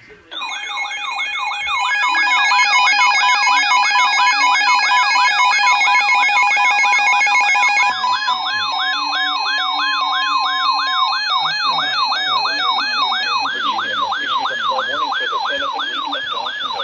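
Electronic siren yelp, several layers sweeping up and down about three times a second, mixed with steady tones; the upper layers change about eight seconds in.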